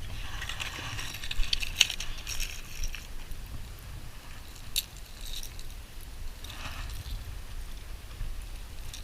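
Wind rumbling on the microphone, with scattered small clicks and rattles of a fishing reel being handled, most of them in the first three seconds and one sharp click near the middle, as a backlash in the line is cleared.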